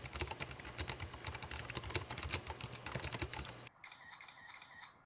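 Dense, rapid, irregular clicking that breaks off suddenly about three and a half seconds in, giving way to fainter, thinner clicking with a faint high tone.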